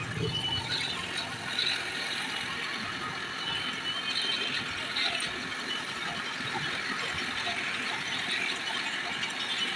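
Steady, rapid metallic clicking and rattling, like a ratchet or gear mechanism, from hand work on a clutch plate.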